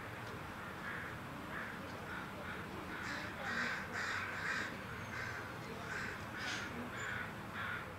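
Crows cawing, harsh short calls repeated in quick runs of three or four, over a steady background noise.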